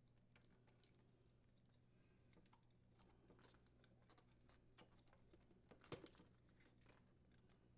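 Faint clicking and plastic handling as a refrigerator ice maker's sensor wire is pressed under its plastic retaining clips, with one sharper click about six seconds in.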